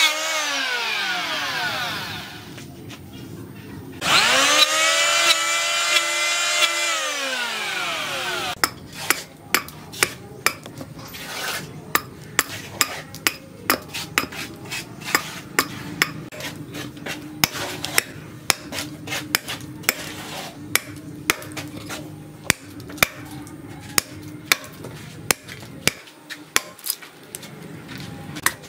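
Electric hand planer winding down, then started again for about four seconds and switched off, its pitch rising as it spins up and falling as it stops. After that, a long run of sharp chops, one or two a second, as a steel machete blade bites into a wooden root.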